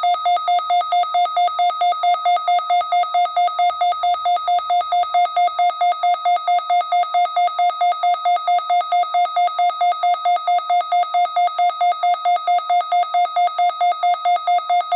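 Emergency alert attention tone: a loud electronic beep pulsing rapidly and evenly, about four beeps a second, sounding ahead of an AMBER Alert broadcast.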